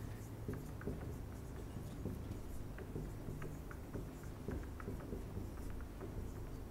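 Marker writing on a whiteboard: a run of short, faint pen strokes and taps as words are written out, over a steady low room hum.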